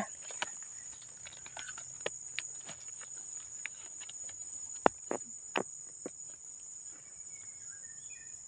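A steady high insect drone, with scattered crackles of dry leaf litter and a couple of sharper snaps about halfway through as gloved hands pick mushrooms from among the dead leaves.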